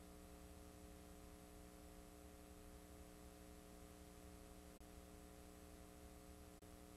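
Near silence: a faint, steady electrical hum with hiss from a blank stretch of videotape, broken twice by a split-second dropout, the second just before the end.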